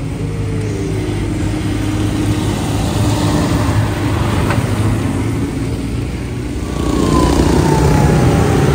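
Large diesel farm tractors and a car driving past one after another, with engine hum and tyre noise on a wet road. The engine note falls in pitch as each goes by, and it is loudest near the end as a tractor passes close.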